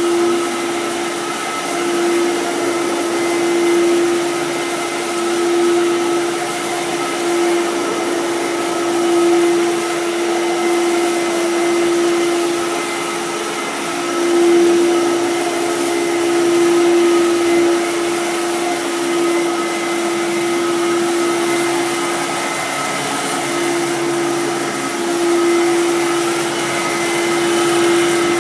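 Fantom Domestic upright vacuum cleaner running, a steady motor hum with a strong single tone. Its loudness swells and eases every couple of seconds while it cleans.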